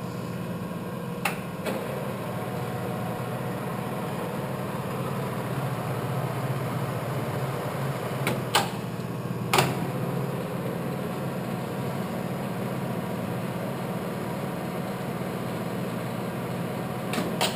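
Clausing Colchester geared-head engine lathe running steadily with its spindle turning, a continuous gear-drive hum. A few sharp knocks cut through it: one about a second in, two close together near the middle, and one near the end.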